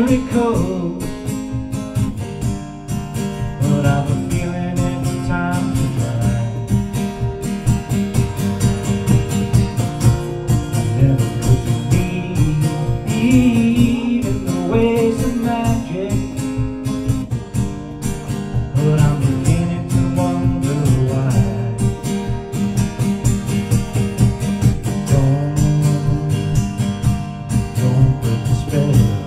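A man singing while strumming an acoustic guitar, a live solo performance.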